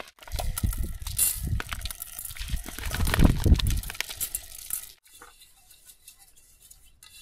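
Clear zip-top plastic bag crinkling and rustling as its contents are squeezed out into a small pot, with small clicks and heavy low bumps of handling. It stops about five seconds in, leaving only faint sound.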